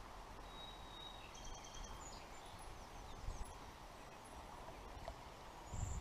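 Faint bird chirps and short whistles over a steady low outdoor background hiss.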